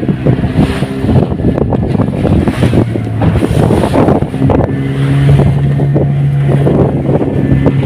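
Fishing boat's engine running under way with a steady low drone, over wind buffeting the microphone and the hull slapping through choppy waves.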